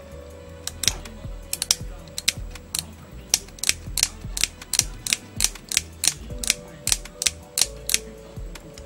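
Irregular series of sharp clicks and ticks, about three a second, from handling an old Sony radio's circuit board and its wiring.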